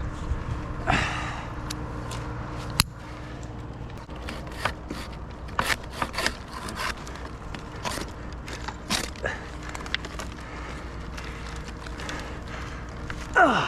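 Irregular clicks, knocks and scrapes of a tree climber shifting position and handling rigging gear in the tree, over a faint steady hum. Near the end a short, loud falling swoop.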